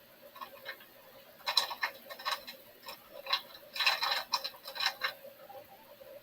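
Kitchen clatter: a quick run of light clicks and taps from cookware and utensils being handled, busiest in the middle, over a faint steady hum.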